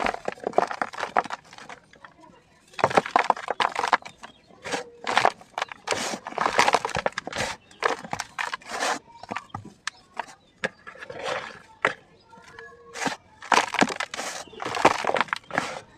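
Dry sand-and-cement chunks crunching and crumbling, in several bursts of crackling with short pauses between them.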